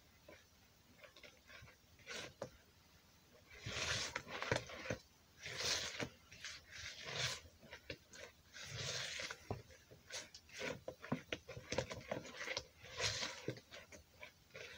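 Batter being stirred by hand in a plastic mixing bowl, the utensil scraping and squelching through the thick banana and rice-flour mix in uneven strokes that start a few seconds in.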